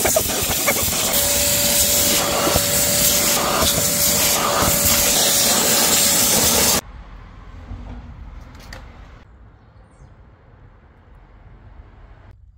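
Wet vacuum running with a loud rushing hiss and a steady whine as its nozzle works over soapy foam on a plastic door sill; the noise cuts off suddenly about seven seconds in.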